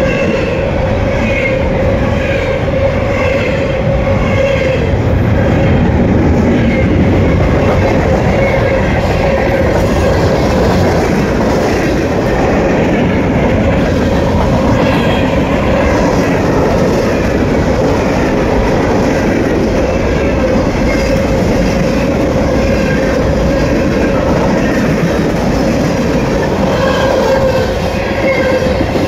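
CSX mixed freight train rolling past at close range: double-stack intermodal well cars, then gondolas and tank cars, their wheels clattering over the rails. A steady high tone runs under the rolling noise.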